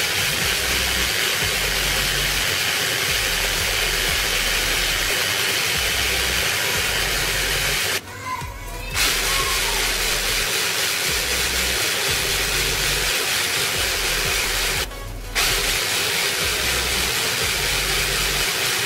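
Small electric food chopper running steadily while it blends a wet spice paste. The motor cuts out briefly twice, about eight seconds in and again around fifteen seconds, as the button is let go and pressed again.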